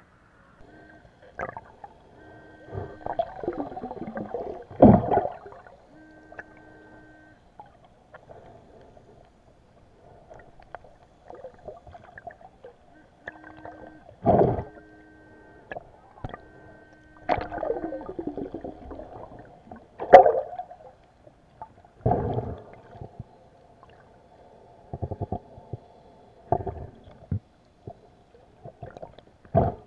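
Muffled underwater sound of water sloshing and gurgling around an action camera, broken by several loud knocks and thumps. A few short, steady, buzzing tones of about a second each come and go in the first half.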